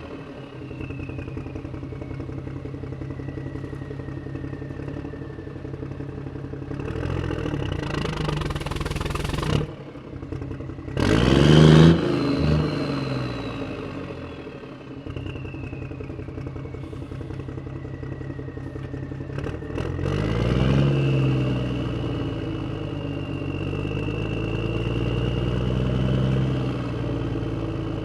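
Motor vehicle engine running and revving. About ten seconds in the sound drops out briefly, then the engine comes back with a loud rev that falls away. Around twenty seconds in it revs up again, as when pulling away.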